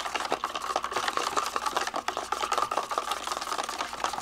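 Wooden chopsticks stirring milk inside a cardboard milk carton: a quick, continuous run of light clicks and scrapes against the carton walls as drinking yogurt is mixed in as the starter for yogurt.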